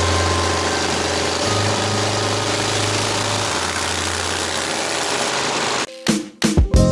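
Motorcycle engine running at road speed under heavy wind rush. The engine note steps up about a second and a half in and drops back about two seconds later. The sound cuts off abruptly near the end.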